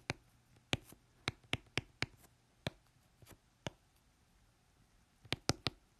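Pen writing on paper: irregular short taps and scratches of the pen tip as a word is written out, with a quick cluster of three taps near the end.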